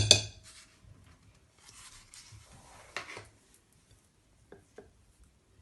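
A kitchen utensil clatters against a mixing bowl, then scrapes and rubs as butter is added to the cake batter, with a sharp knock about three seconds in and a few faint clicks near the end.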